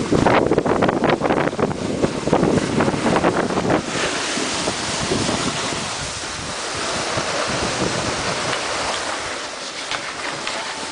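Wind buffeting the microphone, gusty for the first few seconds, then an even rushing hiss of snowboards sliding over packed snow.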